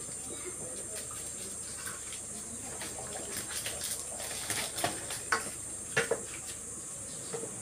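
Wooden spoon stirring thick tomato sauce in a metal pan, with several sharp knocks of the spoon against the pan between about four and six seconds in. A steady high hiss runs underneath.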